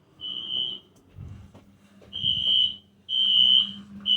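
Wheelock NS fire alarm horn sounding steady high-pitched beeps in the temporal-three evacuation pattern: one beep, a pause of over a second, then three beeps about a second apart.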